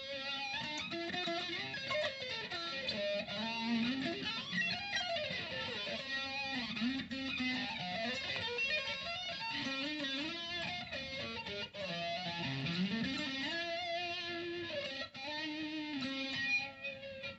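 Distorted electric guitar played through an analog flanger pedal with the colour (feedback) control turned up until it sits right on the edge of feeding back. The notes are held, bent and slid.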